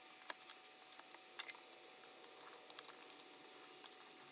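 Faint scattered light clicks of a small screwdriver and tiny screws being handled at a laptop's battery bay, over quiet room tone.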